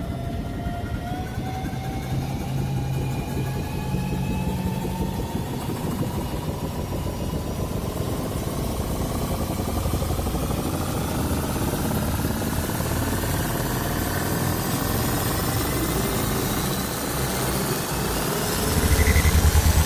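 Time-machine sound effect building up: several whining tones rise slowly in pitch over a fast, pulsing low throb that gets louder near the end.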